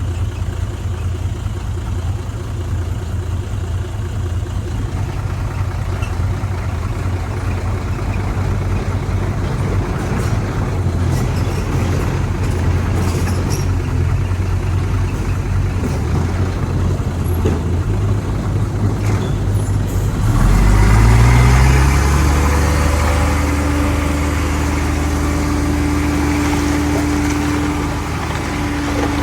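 Heavy diesel engine of earthmoving machinery running steadily under load, then revving up about two-thirds of the way through and holding at a higher pitch.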